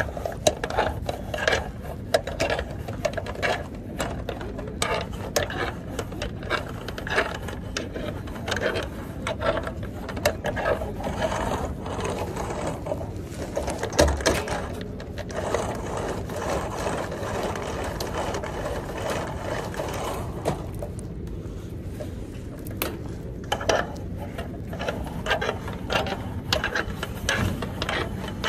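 Customs cable being pulled by hand through the metal rings and eyelets along a curtainsider trailer's tarpaulin: an irregular run of small clicks, rattles and scrapes of cable on metal, with rustling of the tarp.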